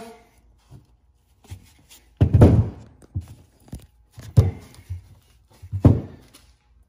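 Three dull thunks, with lighter knocks between, as a shock absorber and its rubber boot are handled and knocked against a workbench.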